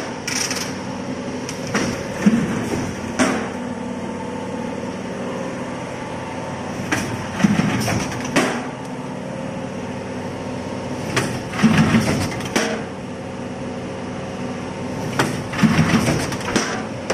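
Corrugated carton stitching machine running with a steady mechanical hum, broken four times by a quick cluster of sharp knocks, about every four seconds, as the stitching head drives wire stitches into a box.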